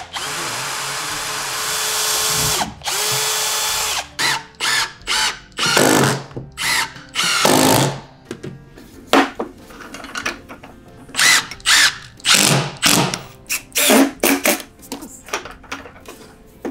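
Cordless drill boring into plywood. One steady run of a few seconds, then a shorter one, then a quick series of short trigger bursts.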